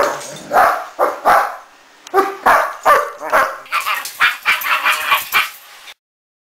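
Irish wolfhound barking repeatedly, the barks coming quicker and higher-pitched in the second half, then the sound cuts off suddenly about six seconds in.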